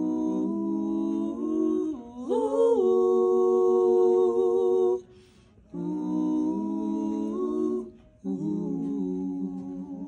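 Wordless vocal harmony: several layered voices hum long held notes with a slight waver, rising in pitch about two seconds in and breaking off briefly twice.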